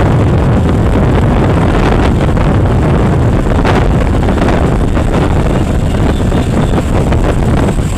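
Wind rushing and buffeting over the microphone on a moving motorcycle, a loud steady rumble with the bike running underneath.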